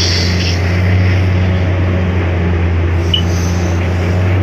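Excavator's diesel engine running steadily under digging load, a constant low drone. A short hiss rises near the start as soil and rubble pour from the bucket.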